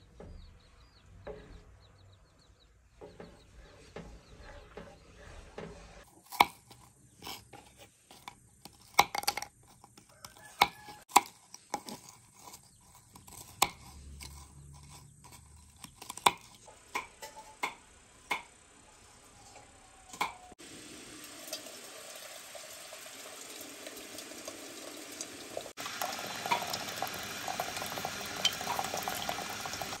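A wooden spoon stirring thin batter in a metal bowl, then a knife chopping crackers on a wooden board in sharp, separate knocks and crunches. In the last third a steady hiss sets in and grows louder near the end.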